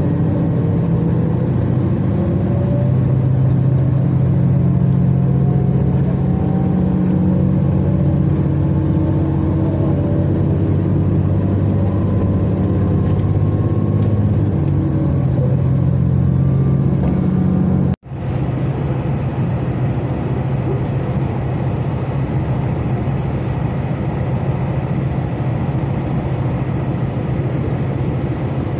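Diesel express train heard from inside the passenger car as it pulls away from a station: the engine and drive whine climbs slowly in pitch, dipping briefly about fifteen seconds in. After a sudden break a little past halfway, a steady running rumble of the train at speed.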